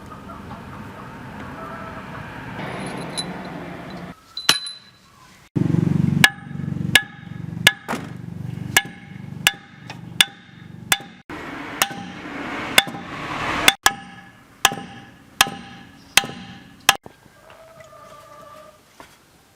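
A hammer striking metal about once every three quarters of a second, a dozen or so blows in a row, each blow ringing. A steady noise comes before the blows.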